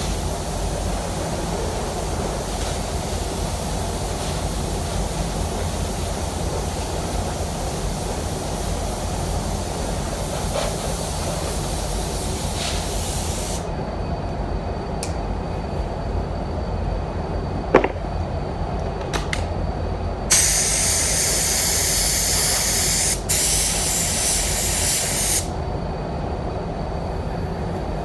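Compressed-air paint spray gun hissing as it sprays waterborne basecoat, over the steady low rumble of the paint booth's air flow. The hiss stops about halfway, a few clicks follow, then the gun hisses again much louder and close by in two long bursts with a brief break between.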